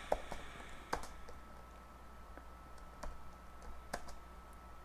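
Computer keyboard typing: scattered key clicks, a few louder than the rest, at an uneven pace.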